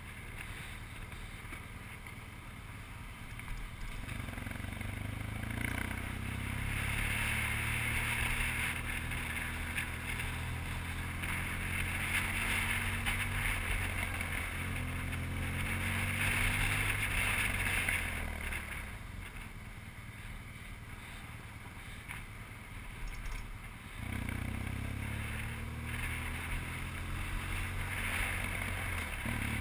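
BMW R1200GS flat-twin engine pulling the motorcycle along at road speed, with wind rushing over the camera. The engine note picks up about four seconds in, eases off and goes quieter for a stretch about two-thirds of the way through, then picks up again.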